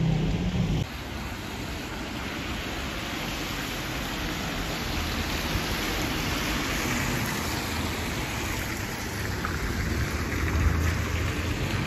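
Steady hiss of rain and tyres on a wet road as a Mercedes-Benz minibus drives past, its engine a low rumble that swells as it goes by. A louder low engine drone from a bus alongside stops about a second in.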